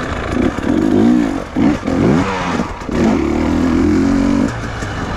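Enduro dirt bike engine revving up and down in several short swells, then holding steady revs for a second or so before dropping back near the end.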